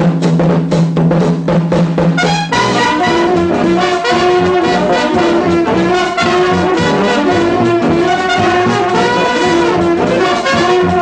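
Film soundtrack music: a quick run of drum beats over a held low note, then about two and a half seconds in an ensemble melody of sustained notes comes in and carries on.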